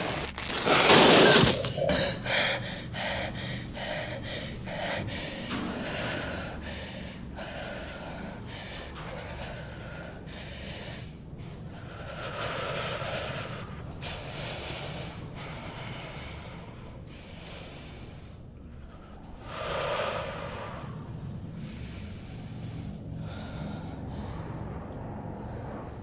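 A woman's heavy breathing and gasps: one loud gasp about a second in, then quick panting breaths about twice a second, slowing to a few long, drawn breaths later on.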